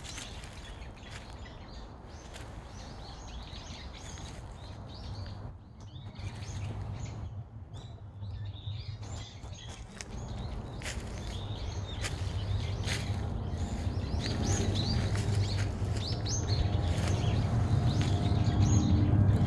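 Footsteps crunching through dry fallen leaves and twigs on a forest floor, with small birds chirping high above. A low rumble builds up steadily over the second half.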